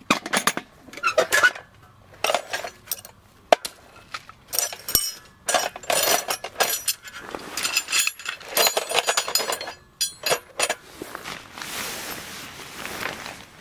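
Steel tool box unlatched and opened, with metal tent stakes clinking and rattling against each other and the steel box in a long run of sharp clatters. Near the end the clinking stops and gives way to the rustling of a canvas storage bag.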